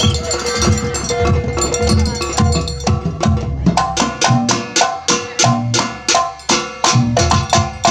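Kuntulan ensemble of terbang frame drums playing, with deep bass strokes under sharp slapped strokes. About three seconds in, the sharp strokes turn dense and regular, a few to the second.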